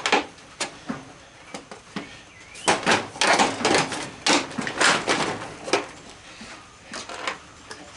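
Parts of a horse decoration's casing knocking and scraping as a component is worked and pulled out of it: a few separate knocks, then a busy stretch of scraping and rattling from about three to six seconds in.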